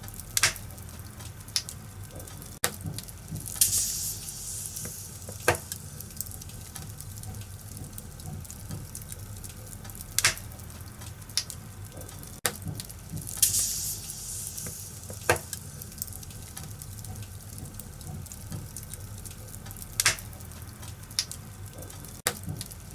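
Wood fire in a fireplace crackling over a steady low rumble, with scattered sharp pops and two short hissing bursts, about 4 and 13 seconds in.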